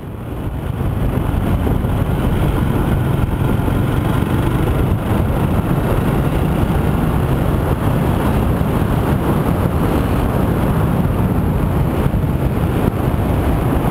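Steady wind rush on the microphone and road noise from a Rusi Classic 250 motorcycle being ridden at a steady speed. The noise builds up over the first second and then holds level.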